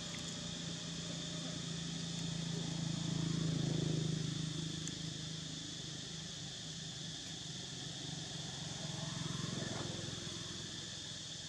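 Steady high-pitched drone of insects, with a low hum underneath that swells about a third of the way in and again near the end.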